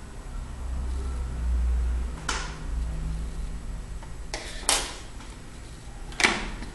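Makeup being handled at a table: a low rumble, then a few short clicks and rustles, the sharpest about six seconds in, as the lip pencil is put down and the lipstick picked up.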